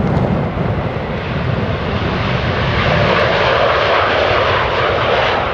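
Ilyushin Il-76TD's four turbofan jet engines at takeoff power as the freighter begins its takeoff roll: a loud, steady rush of jet noise, its higher part swelling from about halfway through.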